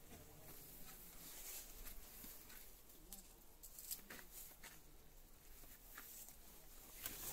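Near silence inside a small rock shelter, with faint, scattered clicks and scuffs every second or so.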